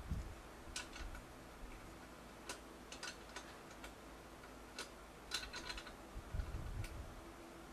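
Scattered light metallic clicks and taps from a hand tool working on a bicycle's rear brake fittings, with a quick run of clicks about five and a half seconds in and a couple of dull knocks.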